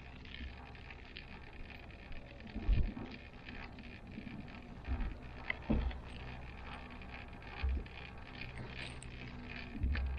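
Steady hum of a cable car gondola running along its cable, heard from inside the cabin, with several short low thumps scattered through it.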